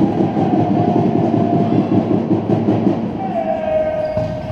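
Crowd of handball spectators cheering and shouting in a sports hall, echoing, with a long drawn-out call sliding slightly down in pitch over the last second and a half.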